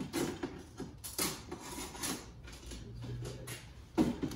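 Hand chisel scraping and chipping hardened old glazing putty out of a wooden window sash's glass rabbet, in irregular strokes with the loudest one near the end.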